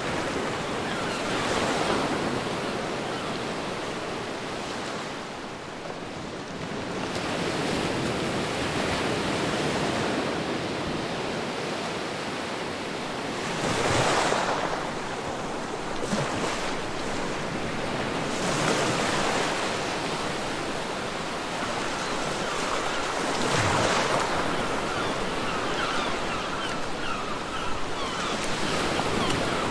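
Ocean surf on a beach: a continuous rush of breaking waves that swells and falls back every few seconds, with the strongest breaks about halfway through and again a little later.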